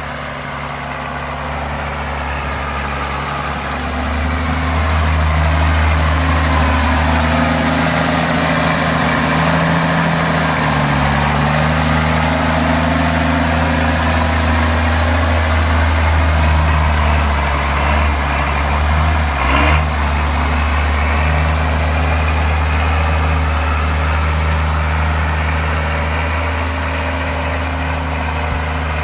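County 1164 Turbo tractor's turbocharged diesel engine working under load while buck raking maize silage, a steady heavy drone that gets louder about four seconds in. A whine above it dips in pitch and rises again around the middle, and there is a single short knock a little later.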